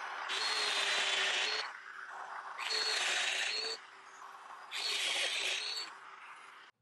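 Festool Domino joiner cutting mortises into pecan board edges: three plunge cuts, each about a second long and louder than the motor running steadily in between. The sound stops abruptly just before the end.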